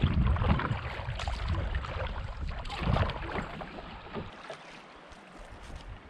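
Paddle strokes splashing beside a Jackson Big Rig HD fishing kayak, with water washing along the hull. A few strokes stand out in the first three seconds. Wind rumbles on the microphone until about four seconds in, then stops.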